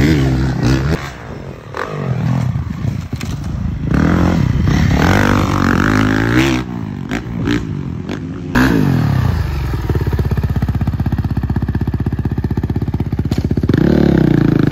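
Dirt bike engines revving up and down as the bikes accelerate and shift on a dirt track. About eight and a half seconds in the sound changes abruptly to a steadier, lower engine note, which picks up again near the end.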